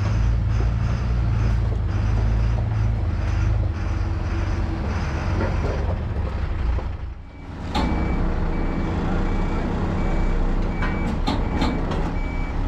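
Truck engine running steadily. About seven seconds in, the level drops briefly, and then a truck's reversing alarm beeps in an even pulse over the engine, with a few sharp knocks near the end.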